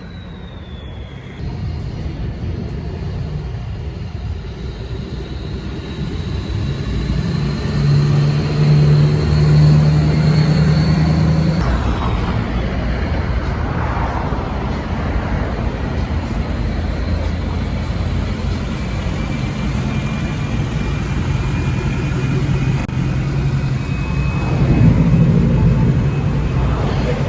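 Ford 6.7 Powerstroke diesel truck running with a KC Whistler turbo, the turbo giving a high whistle that climbs in pitch as the engine pulls and cuts off about a third of the way through. A second, lower whistle rises again near the end over the steady engine drone.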